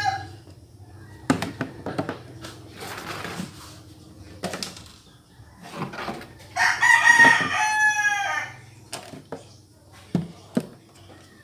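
A loud, long animal call with a falling end about seven seconds in, lasting under two seconds. Around it come scattered small clicks and knocks.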